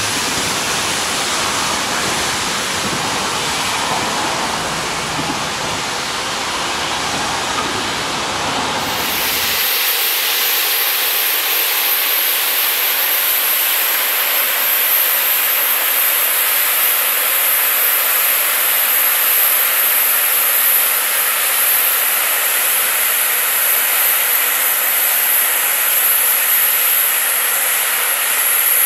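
Steady steam hiss from a standing steam tank locomotive. About ten seconds in, the sound shifts to a brighter, higher hiss with the low rumble gone.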